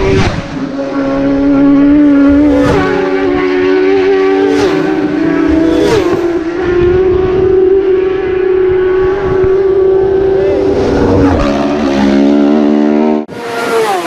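Racing superbike engine at high revs flat out on the Isle of Man TT road course, a steady high engine note with a few brief breaks, which drops in pitch about eleven seconds in. Near the end it switches abruptly to another bike's engine.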